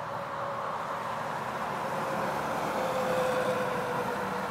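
A vehicle passing by: a steady rush with a faint hum that slowly drops in pitch, swelling to its loudest about three seconds in.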